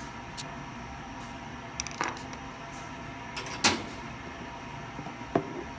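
Sharp metallic clicks and knocks, about six of them spaced irregularly, the loudest about two-thirds of the way in: a screwdriver being worked against the tab of a freshly installed HeliCoil thread insert in a steel snare stand, trying to knock the tab off.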